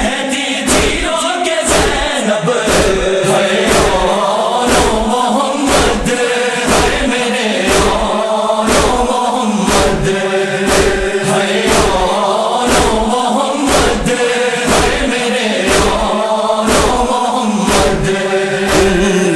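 A noha, a Shia lament, chanted by male voices with a chorus over a steady, regular beat.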